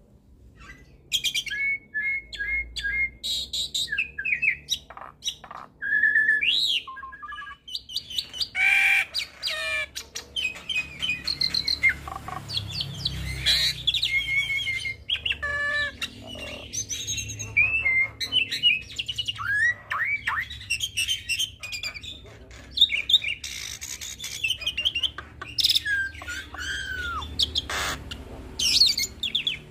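Hybrid starling (Nias hill myna crossed with Asian pied starling) singing a long, varied song of clear whistles, down-slurred notes, rapid chattering trills and harsh squawks, one phrase after another with hardly a pause. A low hum runs underneath.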